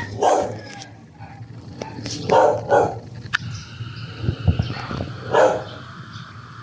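A dog barking four times: once, a pair about half a second apart, then once more.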